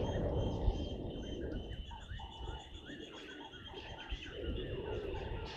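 Wild birds calling, with many short chirps and calls overlapping over a steady high ringing note. A low rumbling noise underneath is loudest in the first second.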